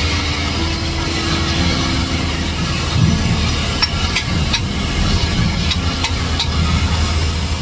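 Steady machinery hum with a low drone and hiss, broken by a handful of sharp clicks around the middle.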